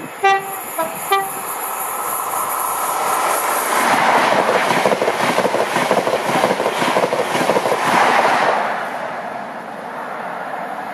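High Speed Train with Class 43 power cars 43059 and 43046 gives two short horn blasts as it approaches, then passes at speed: a rush of engine and wheels on rail that builds, is loudest from about four to eight and a half seconds in, and then fades away.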